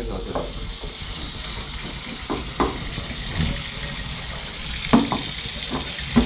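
Kitchen tap running into a stainless-steel sink as a steady hiss, with a few short knocks of containers being handled.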